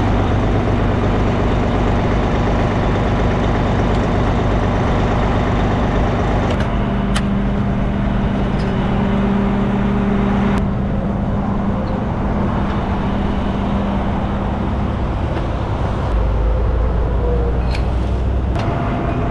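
Heavy diesel trucks idling close by, a steady low hum mixed with road and traffic noise; the pitch of the hum shifts a few times.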